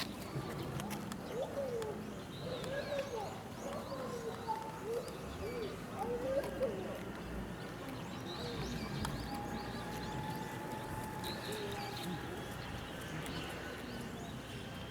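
Outdoor zoo ambience: faint distant voices mixed with small birds chirping and calling.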